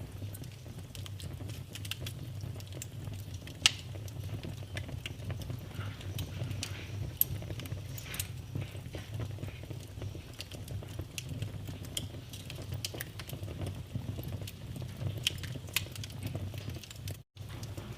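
Wood fire in a fireplace crackling, with scattered sharp pops over a steady low rumble of the burning; the loudest pop comes a few seconds in. The sound drops out for a split second near the end.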